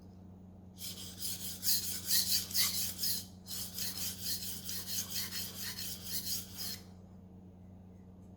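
Knife blade stroked quickly back and forth on a Naniwa splash-and-go waterstone, a wet rasping scrape starting about a second in, with a brief pause near the middle and stopping about a second before the end. The tip is being reworked because it still reflects light and has not yet been brought to an apex.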